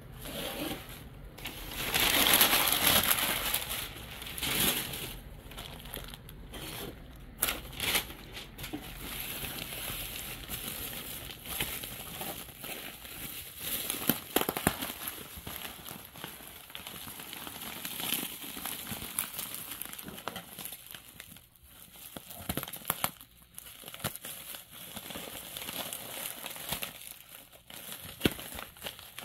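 Plastic packaging crinkling and rustling as it is handled and unwrapped: bubble wrap and a zip-lock plastic bag, with irregular sharp crackles. Loudest a couple of seconds in.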